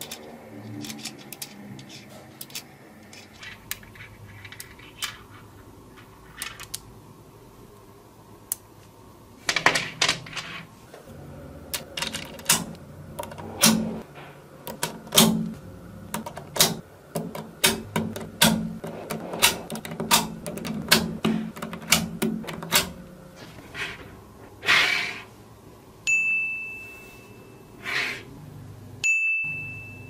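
Small magnetic balls clicking and snapping against each other as hexagonal plates are built and pressed onto a stack: scattered clicks at first, then rapid, dense clacking from about ten seconds in. Near the end, two short high ringing tones.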